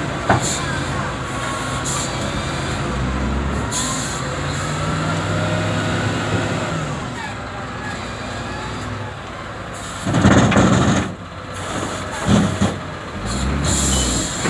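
Heavy diesel machinery running steadily at the truck-recovery site, with a loud noisy burst lasting about a second roughly ten seconds in and a shorter one soon after.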